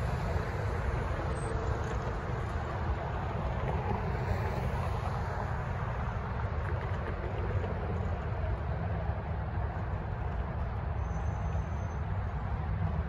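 Cars driving past on a city street: steady traffic noise with a constant low rumble.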